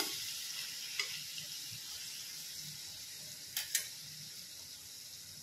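Sliced spiny gourd sizzling in a non-stick kadhai with a little water just added, a steady hiss that slowly fades. A few light spatula clicks against the pan: one at the start, one about a second in, and two close together past the middle.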